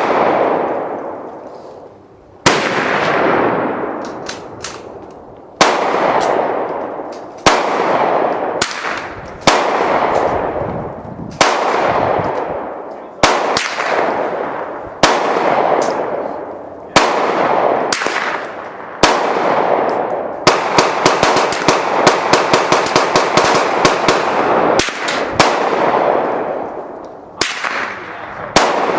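Gunfire on a shooting range: single shots about every two seconds, each with a long rolling echo, and a rapid string of shots lasting several seconds about two-thirds of the way through.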